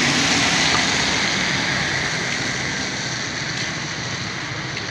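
Street traffic on a rain-wet road: a steady hiss of tyres and rain, loudest at first and slowly fading, with a vehicle engine's low hum at the very start.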